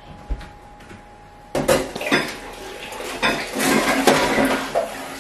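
Dishes and cutlery clattering as they are handled at a kitchen sink, starting about a second and a half in after a few faint clicks.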